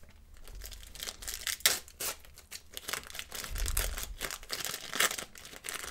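A trading-card pack wrapper being torn open and crinkled by hand: irregular crackling and rustling, with sharper crackles about two seconds in and near the end.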